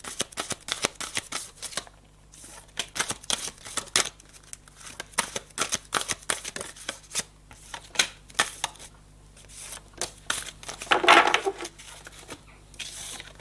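A deck of oracle cards being shuffled by hand: rapid, dense flicking and clicking of cards, with a louder rustle about eleven seconds in.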